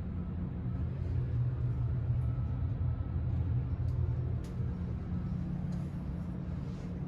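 Steady low rumble and hum of a car ferry's machinery and ventilation, heard inside a passenger cabin, with a few faint ticks.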